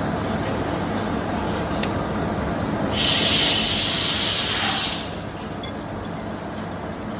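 Steady low industrial rumble, with a loud hiss that starts suddenly about three seconds in, lasts about two seconds and stops abruptly.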